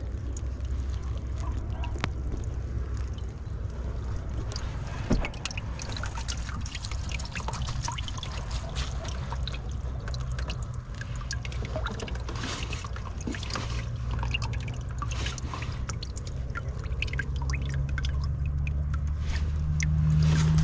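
River water trickling and dripping out of a freshly lifted whitebait net, draining through its fine mesh in many small patters. A steady low drone runs underneath and grows louder near the end.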